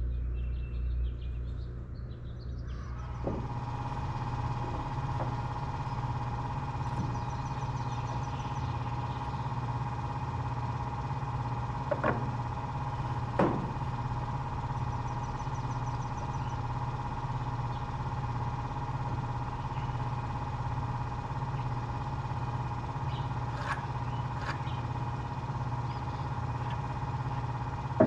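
An engine running steadily at idle, with a few brief knocks partway through.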